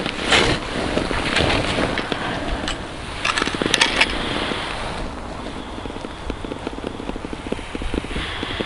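Wind buffeting the microphone, with rustling and crackling from a mitten and winter clothing as a small ice-fishing rod is handled. It is busiest in the first four seconds, then softer with light crackles.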